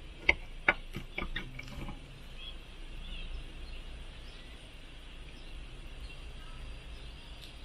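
A metal knife and fork clinking against a plate while cutting a grilled ribeye steak: a run of sharp clicks in the first two seconds, then a quieter stretch.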